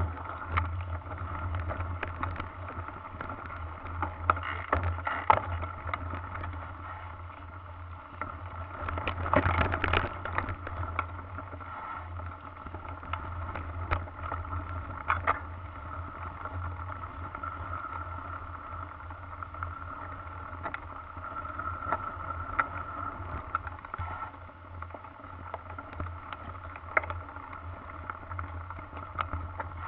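Mountain bike riding over a rough dirt singletrack, heard from a camera on the rider: a steady muffled rumble with frequent knocks and rattles as the bike goes over bumps, busiest about ten seconds in.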